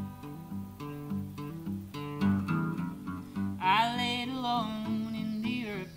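Acoustic guitar and a second small plucked stringed instrument playing a song's intro, joined about three and a half seconds in by a wordless sung vocal held with a wavering pitch for about two seconds.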